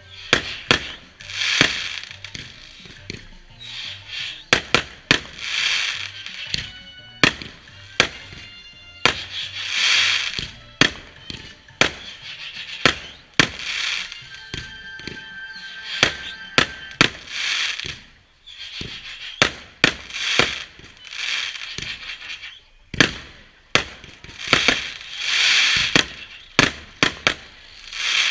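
Fireworks going off: many sharp bangs and pops, some close together, between rushes of hiss that last about a second each.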